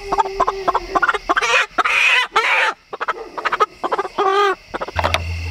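Chickens clucking and squawking, with a couple of harsh squawks about two seconds in and a rising call near the end, over scattered taps and rustles.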